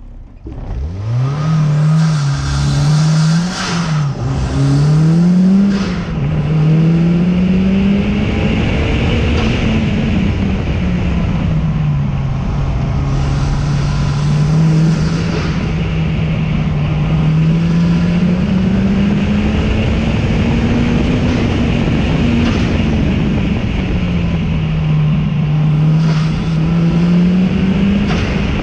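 A race car's engine under hard acceleration on a hill climb run. The pitch climbs quickly and drops sharply at each of two upshifts in the first few seconds, then rises and falls steadily as the car brakes and accelerates between corners. A constant rush of wind and road noise runs underneath.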